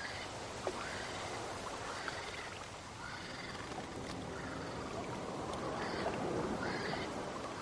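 Shallow pond water sloshing and trickling around wading flamingos, with short rising nasal honks from the birds every second or two.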